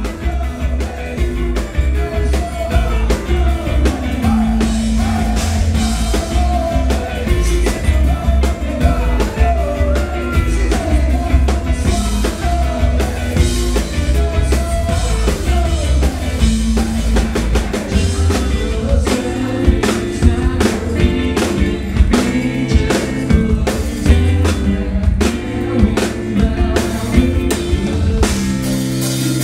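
Live rock band playing loudly: drum kit, guitar and a singer, with the sung line clearest in roughly the first half.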